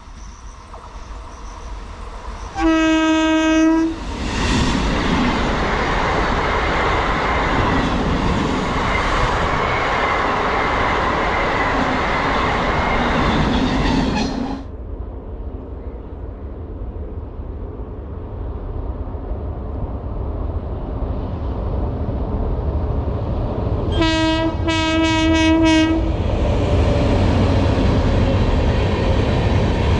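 Indian Railways express train's locomotive horn sounding one long blast, then the train running past with a loud rush and rumble that cuts off suddenly. A lower rumble then builds, the horn gives a rapid string of short toots, and the loud running noise of the train resumes.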